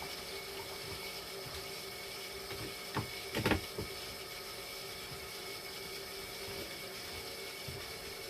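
Steady machine hum with several fixed high tones, with a few knocks and clicks about three seconds in from the machine being handled.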